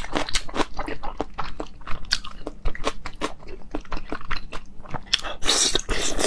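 Close-miked chewing of pork skin rolls, with many quick mouth clicks, and a louder hissing bite into another piece near the end.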